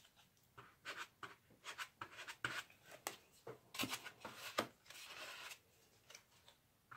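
A plastic card used as a screen-printing squeegee scraping and rubbing, partly against the edge of a plastic paint tray to clear off fabric paint: a string of short faint scratches, with a longer rub about five seconds in.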